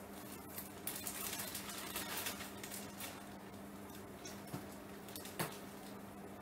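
Faint rustling and light taps of scarves being handled in their gift boxes, over a low steady hum, with one sharper click about five and a half seconds in.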